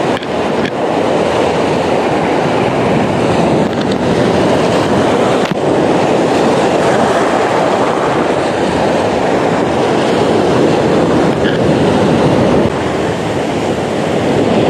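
Sea surf breaking and washing over a rocky shore: a loud, steady roar of rushing water, with a faint click or two.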